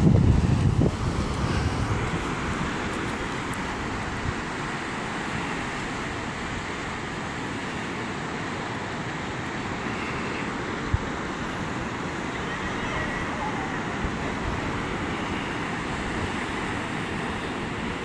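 Ocean surf washing onto the beach as a steady hiss, with wind buffeting the microphone in the first second or two.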